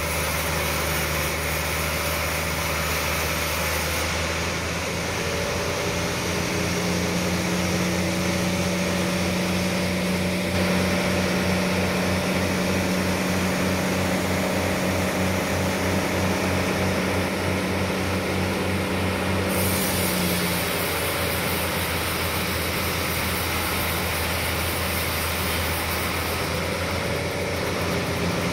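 Large industrial sawmill bandsaw running, a steady machine hum with several tones. From about five seconds in until about twenty seconds in it takes on an even, rapid throbbing, with one tone standing out more strongly.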